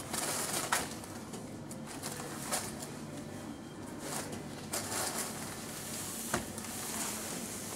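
Steady low machine hum with a few short rustles and clicks scattered through it, as of goods or plastic being handled at a freezer.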